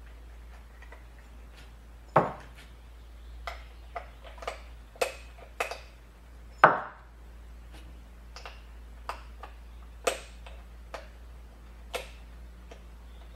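Irregular clicks and taps of small hard parts and hand tools being handled during bench work on a battery master switch, with two sharper knocks about two seconds and six and a half seconds in.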